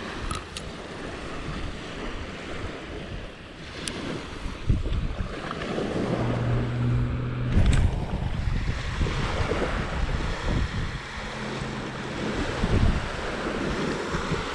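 Small waves lapping and washing up on a sandy beach, with wind buffeting the microphone. A low steady hum comes in briefly twice.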